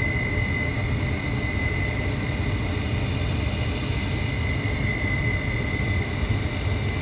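Jakel inducer motor of a Carrier gas furnace running with a terrible, steady high-pitched whine over a low rumble. The owner traces the whine to the inducer motor, which seems wobbly.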